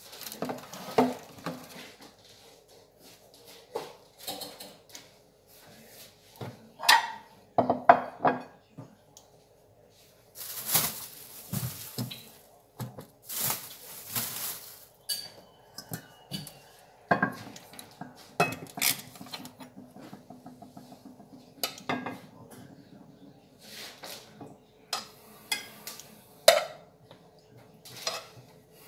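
Ceramic plates and a metal frying pan being handled on a kitchen counter: irregular clattering knocks and clinks, with two short hisses partway through.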